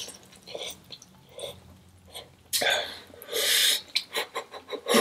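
Close-up eating sounds of a person on very spicy instant noodles: faint wet mouth clicks, then two short hissing slurps or breaths, about halfway through and again a second later.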